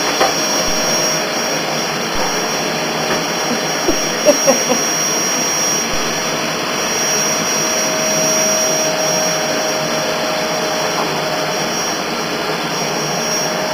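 Vacuum cleaner running steadily, a constant rushing hiss with a steady whine through it.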